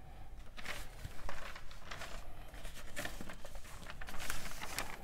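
Soft, irregular rustling and scraping handling noises, with a few sharper taps scattered through.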